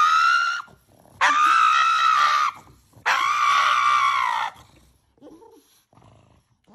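A pug screaming in protest at having its nails clipped: three long, high-pitched screams of about a second and a half each in the first four and a half seconds, then only faint sounds.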